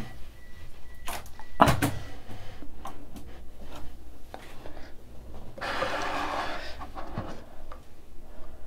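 Handling noises as the camera is moved by hand: a few light clicks, a knock about a second and a half in, and a short scraping rustle about six seconds in.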